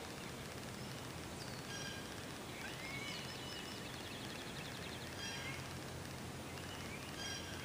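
Songbirds calling in the open: scattered short high chirps, a rising slurred whistle about two and a half seconds in, and a quick trill around three to four seconds in, over a steady low background rumble.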